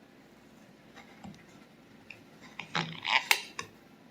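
A few short clicks and scrapes of a utensil against a cake plate, starting a little over halfway through, after a quiet stretch.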